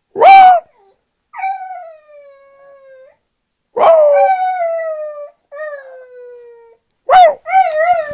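A West Highland White Terrier howling: a short sharp yelp, then a string of long howls, each sliding slowly down in pitch. Near the end comes another yelp, leading into a wavering howl.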